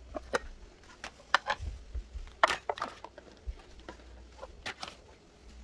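Breakfast dishes being gathered up and carried: a mug knocking on a ceramic plate and spoons clinking on plates, in a string of irregular clicks and knocks, the loudest about halfway through.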